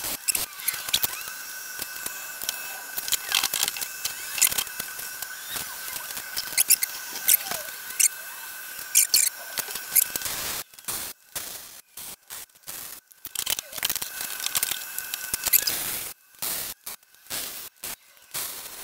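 MIG welding arc crackling on a steel wagon axle, steady for about the first ten seconds, then coming in short stop-start bursts with quiet gaps between them.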